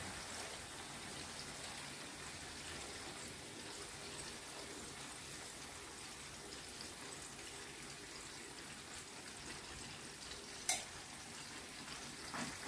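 Faint steady sizzle of chicken frying in oil in a karahi as whisked yogurt is poured in over it. A short knock comes near the end.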